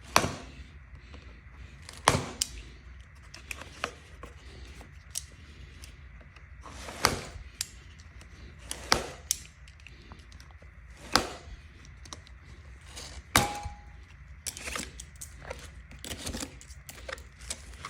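Plastic zip ties being cut off a packed e-bike's parts: irregular sharp clicks and snaps, one every second or two, with a few duller knocks from the parts being handled.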